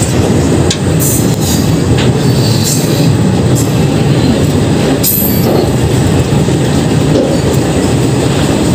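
Indian Railways passenger coach running on the track, with a steady rumble of wheels on rail and a few sharp clicks as the wheels cross rail joints and points. A short high wheel squeal comes about five seconds in as the train runs towards a station stop.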